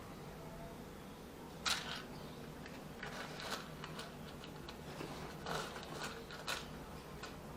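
A cat eating, with irregular crunching clicks of chewing, the sharpest about two seconds in.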